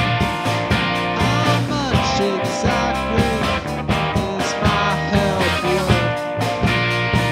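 Garage rock band playing a demo recording, guitars over bass and a steady drum beat, with some notes bending in pitch.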